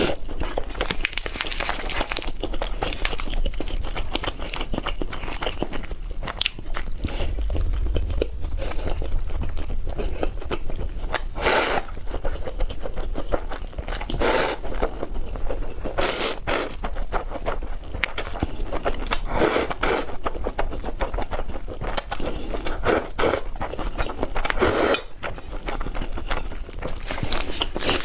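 Close-miked eating of spicy fried noodles: steady wet chewing and smacking with many small crackles, broken by several short loud slurps, mostly in the middle of the stretch and again near the end.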